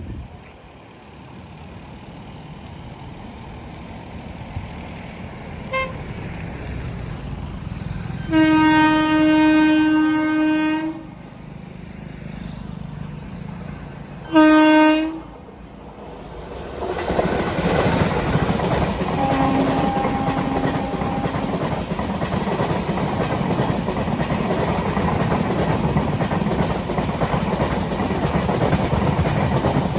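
Deccan Queen Express passenger train approaching with a low rumble that builds over several seconds. Its horn sounds one long blast about eight seconds in and a short second blast around fourteen seconds. The train then passes close by, a loud steady rush of wheels on rails.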